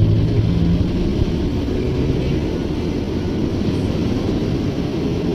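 Road traffic close by: the low rumble of jeepney and car engines, with one steady engine note strongest for the first second and a half.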